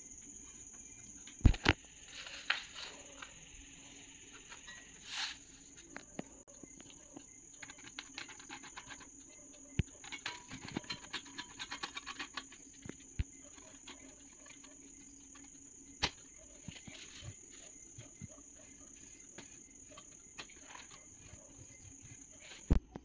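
Hands handling the plastic frame and clips of a pink full-length mirror: scattered sharp clicks and knocks, with a run of small rapid rattling ticks around the middle. The loudest knocks come about a second and a half in and just before the end.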